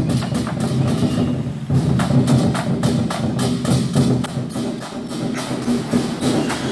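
Lion dance drum ensemble playing a fast, dense beat on several large drums.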